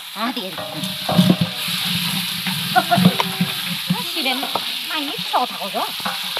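Sliced onions sizzling as they fry in a large metal pot, with a wooden ladle stirring them and knocking and scraping against the pot's sides and bottom.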